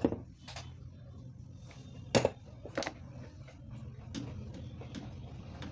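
About seven scattered clicks and knocks from handling tools and a CRT TV's circuit board during repair work, the loudest a sharp knock about two seconds in.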